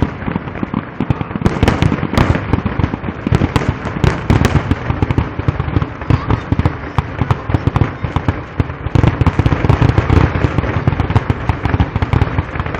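Aerial fireworks going off in a dense, rapid barrage, many loud bangs overlapping with no break: the closing finale of the display.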